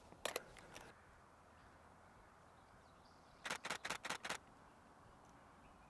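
Nikon Z6 II camera shutter firing: a few single clicks near the start, then a rapid burst of about six clicks about three and a half seconds in, over faint outdoor background.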